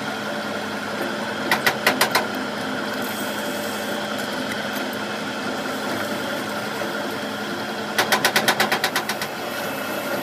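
A workshop machine running with a steady hum, with two bursts of rapid metallic knocks: a short run of about five near the start, and a faster run of about a dozen, roughly ten a second, near the end.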